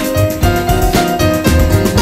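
Background music: an upbeat piano and keyboard tune with a steady beat.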